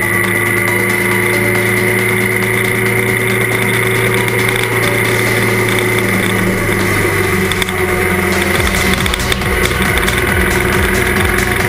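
Trail motorcycle engine running steadily while riding a dirt track; near the end its low note turns into a pulsing beat.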